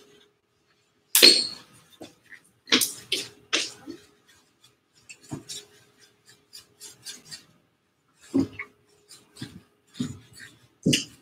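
A paintbrush working on a canvas and palette: irregular sharp taps and short scrapes, a second or more apart, the loudest about a second in.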